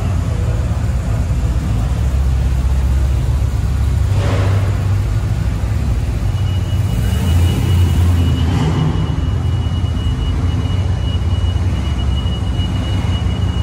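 A truck engine running with a steady low rumble, swelling briefly twice; a thin steady high whine comes in a little past halfway.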